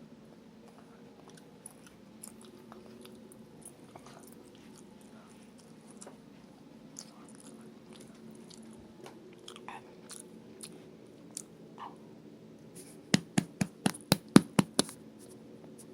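A person chewing, with faint, scattered wet mouth clicks, then a quick run of about ten loud clicks near the end.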